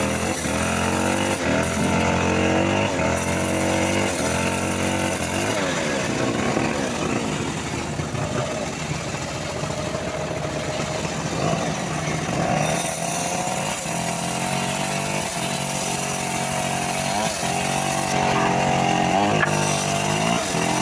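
Homemade engine-driven bandsaw sawmill running while its blade cuts through a teak log. The engine's pitch dips and recovers again and again as the cut loads it.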